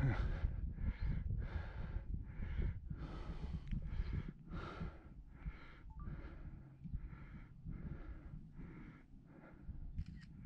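A hiker's hard, rhythmic breathing while climbing a mountain trail, puffs about twice a second, over a low rumble.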